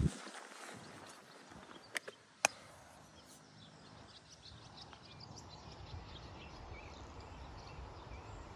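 Faint outdoor field ambience: a light hiss of wind with sparse, faint bird chirps. Two sharp clicks come about two seconds in, half a second apart.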